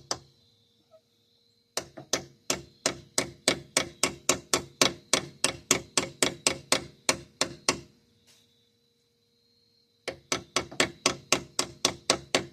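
Hammer striking metal in quick, even blows, about four a second, in two runs with a pause of about two seconds between, each blow ringing briefly.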